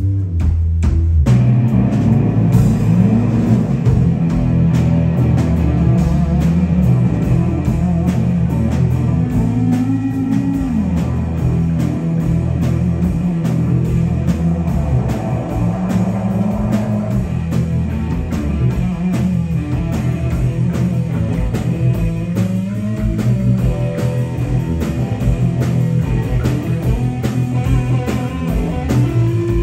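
A live rock band playing an instrumental passage on electric guitar, bass guitar and drum kit, with a steady drum beat and notes bending up and down in pitch.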